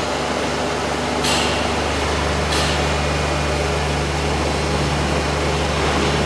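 Steady mechanical hum and whir of a machine running in the workshop, with two short hisses a little over a second apart near the start.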